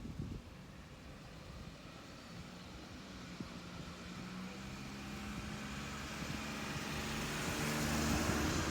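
A road vehicle approaching and passing: engine and tyre noise swells steadily, loudest about eight seconds in, then begins to fade.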